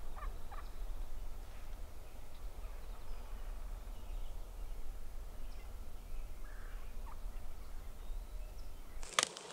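Faint calls from a flock of wild turkeys over a steady low rumble. About nine seconds in, the sound changes to a sharp click and rustling.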